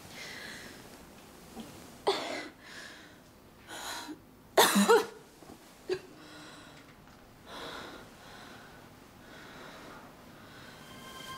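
A woman coughing in bed: a string of separate coughs with breathing between them, the loudest coming about halfway through.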